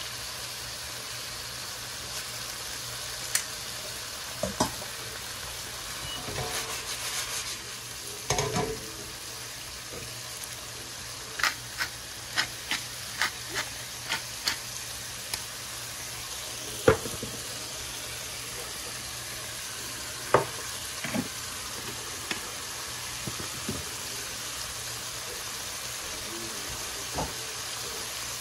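Thin-sliced flank steak sizzling steadily in hot peanut and sesame oil in a nonstick wok, turned with metal tongs at first. Scattered sharp clicks and knocks stand out over the sizzle, with a quick run of them about two a second midway.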